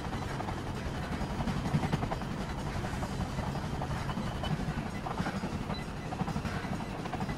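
Treadmill running at a jogging pace of about six minutes per kilometre: the belt and motor run steadily under the regular thud of a runner's footfalls on the deck.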